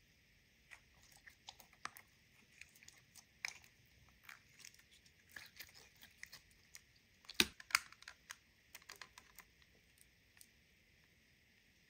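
Clear glitter slime being stretched and squeezed by hand: a string of small sticky clicks and pops, with two louder pops about seven and a half seconds in.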